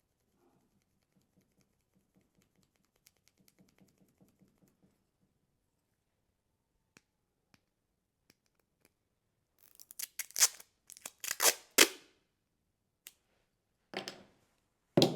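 Faint pencil scratching on a roll of packing tape, then the tape being peeled off the roll in several loud, rasping pulls, with two more short sharp pulls near the end.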